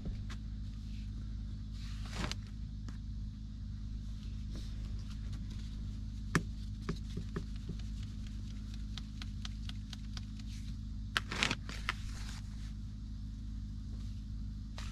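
A plastic scoop scooping flour from a tub and tipping it into a wooden-rimmed bowl: soft scraping rustles about two seconds in and again near the end, with scattered light clicks in between. A steady low hum runs underneath.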